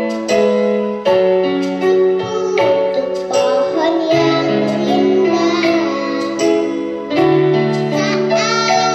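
A child singing an Indonesian children's song over an instrumental backing track of sustained chords.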